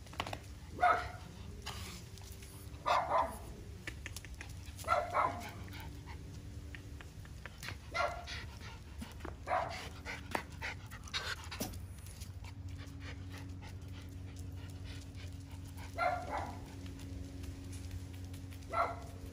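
Miniature schnauzers giving short, sharp barks at irregular intervals of one to three seconds, with a longer pause about two-thirds of the way through.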